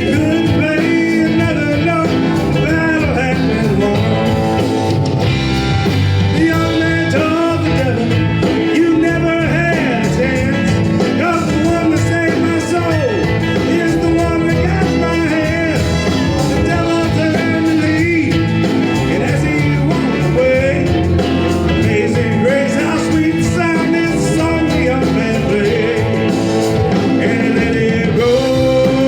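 Live band playing an up-tempo country-rock song with guitars, loud and continuous.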